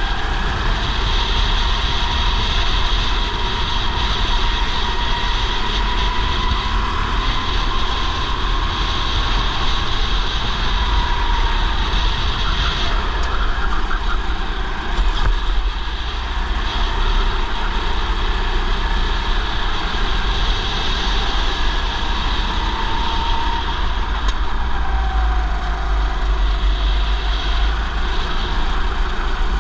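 Go-kart engine running hard under racing load, its pitch rising and falling as the kart slows and speeds up through corners. Heavy wind rumble on the helmet-mounted microphone lies under it.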